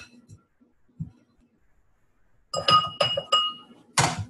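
A mixing utensil clinking against a mixing bowl during stirring: one strike at the start, then a quick run of about four clinks past the middle, each leaving the same short ring, and a louder dull knock near the end.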